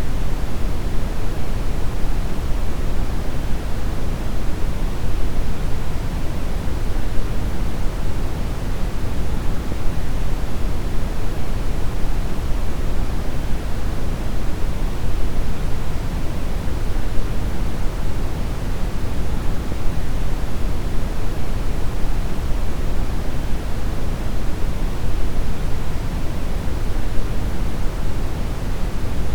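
Deep brown noise: a steady, even rumble of random noise, heaviest in the bass and thinning toward the treble, unchanging throughout.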